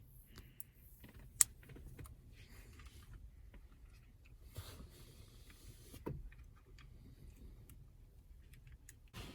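Light clicks and handling noises of a plastic car key fob being worked in the hand, with one sharp click about a second and a half in.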